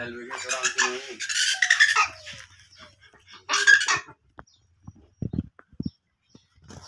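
Calls of a domestic fowl: one long call that falls in pitch at its end, then a shorter loud squawk about three and a half seconds in.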